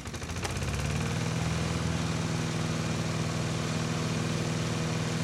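An engine running steadily at a constant speed, building up in level over about the first second.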